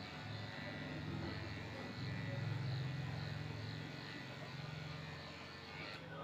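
Corded electric dog grooming clippers running with a steady low hum as they shave a dog's body coat. The hum grows louder for a second or so about two seconds in.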